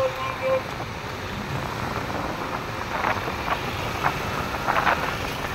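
Wind rushing on the microphone over the running of motor scooters in street traffic. A repeating beep stops about half a second in, and short scattered sounds come from about three seconds in.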